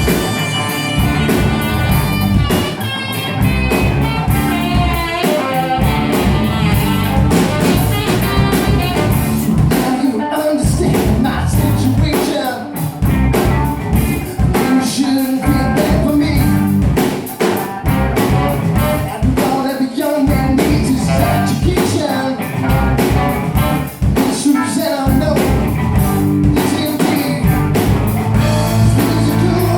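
Rock song with a singing voice over guitar and a steady drum beat.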